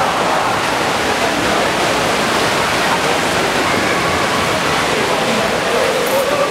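Steady rushing wash of water splashed up by water polo players swimming, with faint distant shouting voices.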